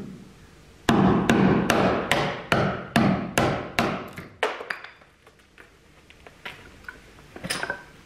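About ten quick hammer blows at the wooden stern post of a boat being cut out for the propeller aperture, roughly two and a half a second, each ringing briefly. They stop about halfway through, and a few faint knocks follow.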